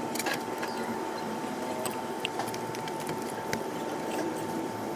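Fingers working lithium grease onto the shaft of an electric power-steering rack, soft squishing with scattered small clicks, over a steady thin whine.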